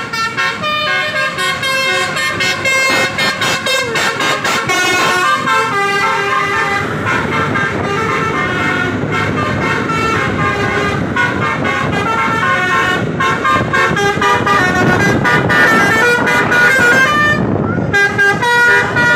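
Telolet horn of an Indonesian tour bus, a set of multi-tone air horns, playing a quick melody of short stepped notes over and over, with vehicle and road noise underneath. The melody breaks off briefly near the end, then starts again.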